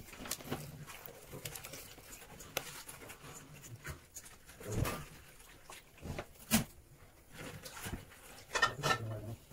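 Slime being pressed and worked by hand on a plastic-covered tabletop: faint handling noise with a few short, separate squishes and pops, the clearest about five and six and a half seconds in.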